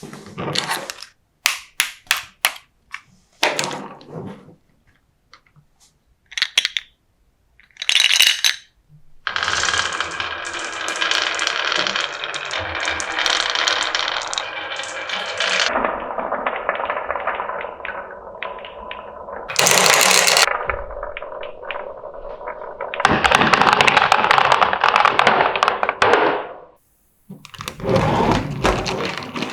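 Marbles clicking and clattering on a marble run, then a long continuous rolling rumble from about nine seconds in until a few seconds before the end, with a brief clatter near the end.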